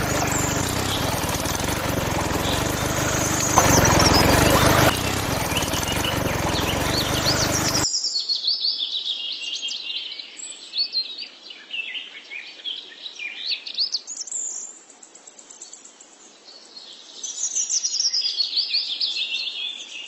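Water pouring and splashing from a miniature water pump's outlet into a tank; it cuts off suddenly about eight seconds in. After that, birds chirp and twitter.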